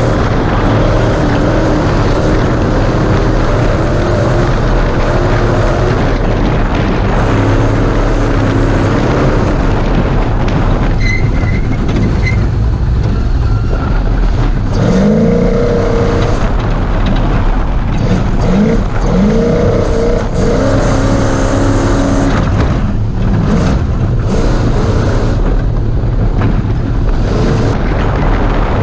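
Class 1450 Ford Ranger off-road race truck running hard, heard onboard: the engine note shifts up and down with throttle and gear changes over a steady, loud rush of noise.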